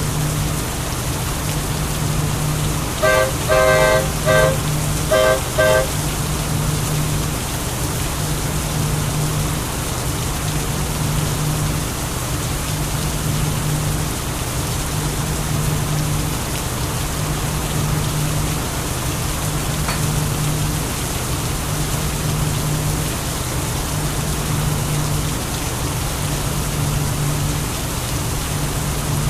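Steady heavy rain with a train horn sounding a quick series of short toots about three to six seconds in. A low hum pulses on and off regularly underneath.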